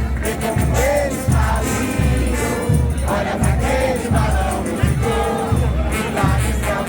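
Festive junina music: many voices singing a melody together over a steady low drum beat of about two strokes a second, with a crowd around.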